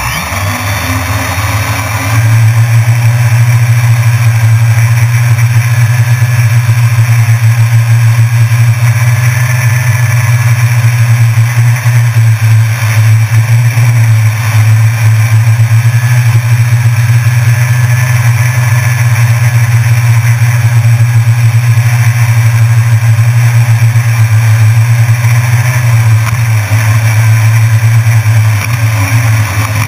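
Drone's electric motors and propellers running with a loud, steady low hum, starting up at the beginning and coming up to full power about two seconds in.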